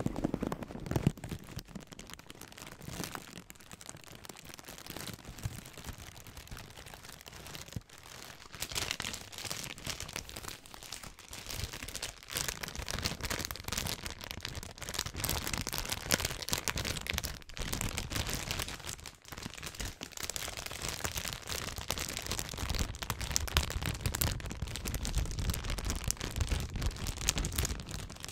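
Close-up rustling and squeaking of a blue inflated air-cushion packaging rubbed and squeezed by hands against the microphone, then, from about eight seconds in, louder, crisper crinkling of a clear plastic bag being scrunched.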